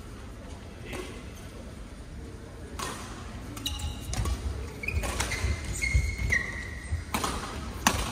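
Badminton rally: rackets striking a shuttlecock in a string of sharp hits, with shoes squeaking briefly on the court floor a little past the middle.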